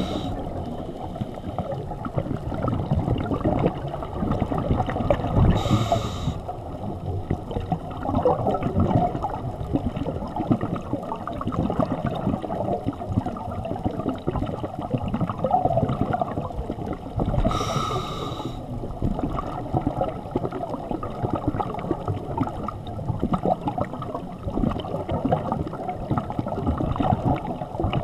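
Scuba diver's breathing underwater, heard through a waterproof camera housing: a steady muffled rush of water and exhaled bubbles, with the regulator hissing on an inhalation about six seconds in and again about eighteen seconds in.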